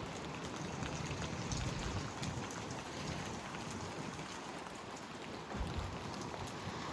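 Steady rain falling in a severe thunderstorm, with fine drop ticks and gusts of wind that come and go, strongest about two seconds in and again near the end.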